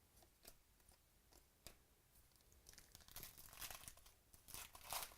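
A few light clicks and taps, then a crinkling wrapper being handled from about three seconds in, growing louder toward the end.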